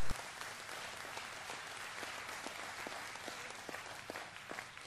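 Audience applauding, a steady patter of many hands clapping that slowly dies away toward the end.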